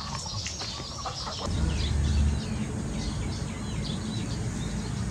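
Birds chirping repeatedly, with a low rumble that is loudest about two seconds in.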